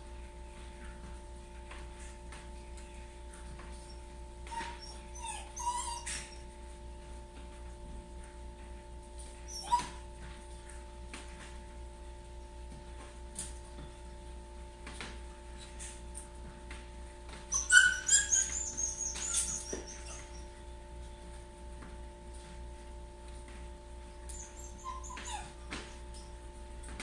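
Shiba Inu whining and whimpering in short high-pitched bouts, loudest in a cluster of cries about two-thirds of the way through: the fretting of a dog left home alone.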